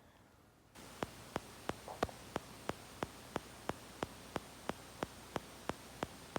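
A faulty iPhone's recording ticking with regular sharp electronic clicks, about three a second, over a steady hiss that steps up just under a second in.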